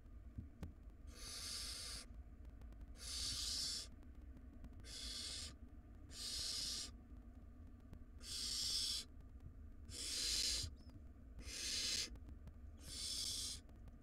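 Barn owl nestlings giving their hissing, snore-like begging calls: a string of about eight long hisses, one every second and a half to two seconds.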